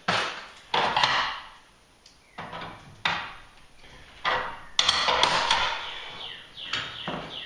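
A series of knocks and clatters from tools and garage door hardware being handled, each hit fading quickly, with a busier run of them about five seconds in.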